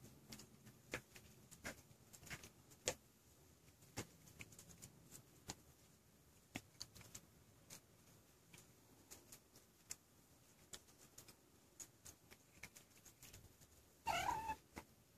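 Very faint, with scattered small ticks and clicks, then one short, wavering high-pitched mew from a very young kitten near the end.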